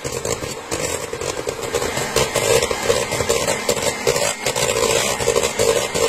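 Bosch electric hand mixer running steadily, its beaters mixing melted chocolate into a thick mascarpone and whipped-cream mixture in a metal bowl.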